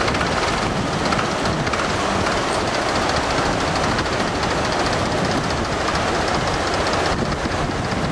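Steady, loud rush of white water on the Beas river rapids, an even churning noise with no break.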